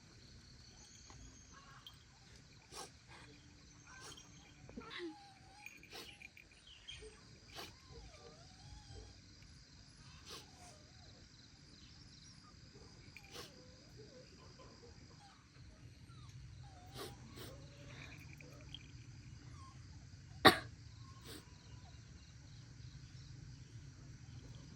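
Scattered short animal calls, faint and intermittent, among light clicks, with one sharp click about twenty seconds in.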